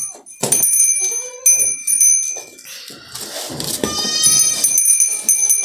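Sojat goats in a pen: short goat calls and scuffling knocks as a buck rears and butts, over a steady high bell-like ringing.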